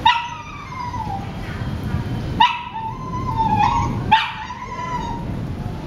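Three high-pitched whining animal cries, each about a second long: one at the start, one about two and a half seconds in and one about four seconds in, over a steady low background noise.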